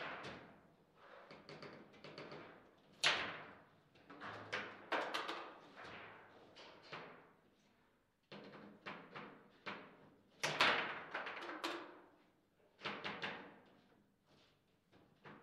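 Table football in play: irregular sharp clacks and knocks of the ball and the plastic players on their steel rods, with the loudest knocks about three seconds in and again around ten seconds in.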